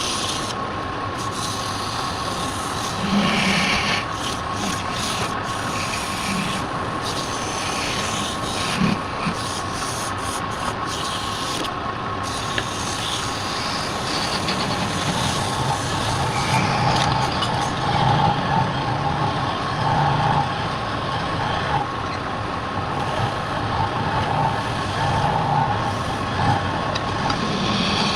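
Wood lathe running with a steady whine, while a turning tool rubs and scrapes on the spinning wood in passes that come and go, heavier in the second half.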